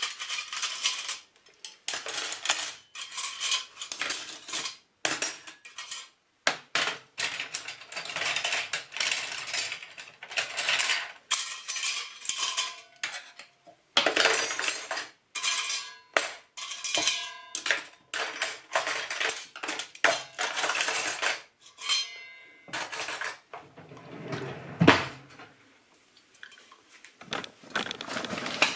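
Metal cutlery clattering and clinking in irregular bursts as it is handled in a stainless steel cutlery tray and utensil holder, some pieces ringing briefly. Near the end comes a single louder knock.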